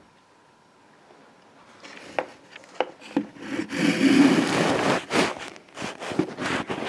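Handling noise: irregular rubbing and scraping on fabric with several sharp knocks, starting about two seconds in and densest near the middle.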